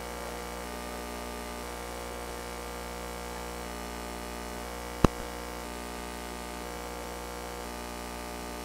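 Steady electrical hum on the audio line, with one sharp click about five seconds in.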